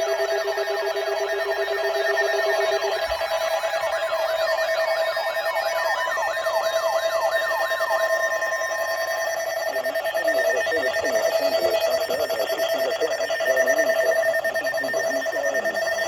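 Electronic alarm tones from an emergency alert broadcast: several steady tones sound together with a siren-like warble sweeping up and down about three times a second. The warble stops about eight seconds in, and a wavering, busier tone pattern carries on.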